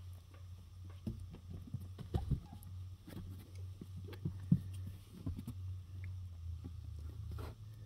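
Cats' paws tapping and scuffing on a cardboard box as they move about in it, a scatter of light knocks and rustles, the loudest a couple of seconds in and again about halfway, over a steady low hum.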